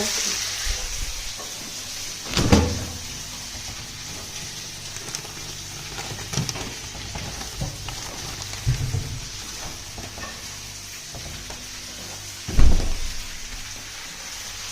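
Food sizzling steadily in a hot frying pan, with a few low knocks of a utensil stirring against the pan. The loudest knock comes near the end.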